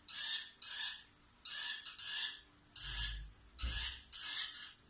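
A spoon scraping and stirring in a container of hand-feeding formula powder: a rhythmic rasp, about two strokes a second, with a dull low thud about three seconds in.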